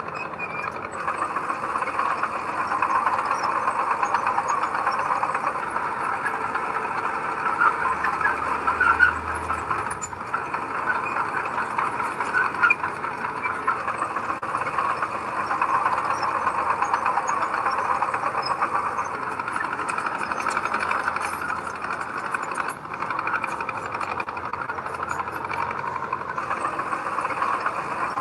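Diesel engine of a heavy earthmoving machine running steadily.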